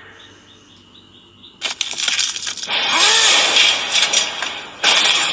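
Anime fight sound effects: after a quiet start, loud crashing and smashing impacts come in about two seconds in, with a yell over them about three seconds in.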